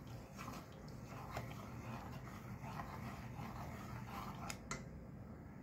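A spoon stirring thick chana dal payasam in a stainless steel pot: soft, faint scraping and swishing, with a few light clicks of the spoon against the pot, two of them close together near the end.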